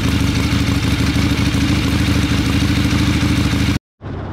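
Harley-Davidson V-twin motorcycle engine idling steadily just after starting, its idle turned up a little by hand because the choke is wired open. Near the end the sound breaks off suddenly to the quieter sound of the bike being ridden.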